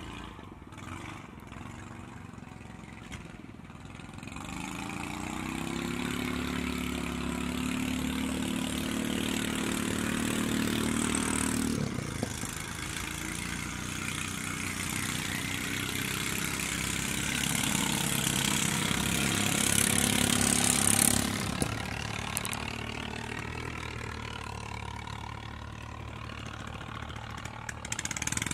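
A motor engine running steadily. It builds up about four seconds in, dips briefly near twelve seconds, swells again and eases off after about twenty-one seconds.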